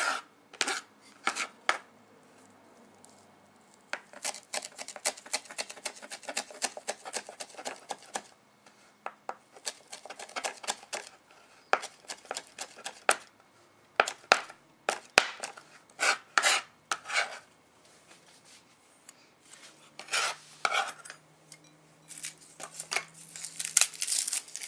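Knife chopping on a cutting board in irregular runs of quick strokes, with short pauses between runs.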